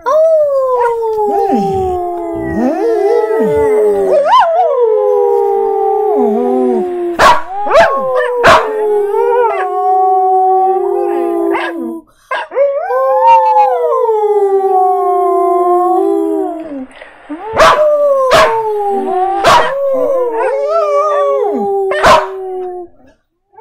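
Samoyed howling: long howls that slide down in pitch and are then held, with short breaks about halfway through and again a few seconds later. Several sharp clicks stand out among the howls.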